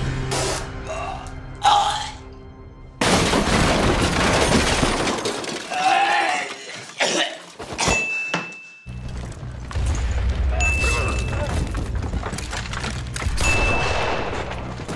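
Dramatic soundtrack music with sudden loud crashes and thuds. The sound changes abruptly several times, with a hard jump about three seconds in and another around eight to nine seconds in.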